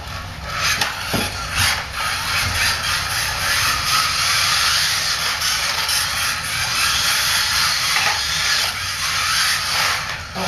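Kyosho Mini-Z electric RC cars driving hard: a steady whir of their small electric motors and gears with tyre hiss on the track mat, building up about half a second in, with a few short clicks.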